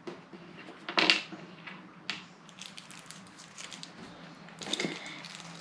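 Small plastic bags and accessories being handled on a plastic tabletop: crinkling packaging and light clicks of small parts set down, with a sharper rustle about a second in and another near the end.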